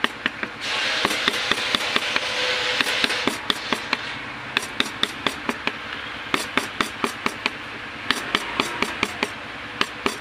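Carving chisel struck with a mallet into wood in quick, regular taps, about three to four a second, with a couple of short pauses.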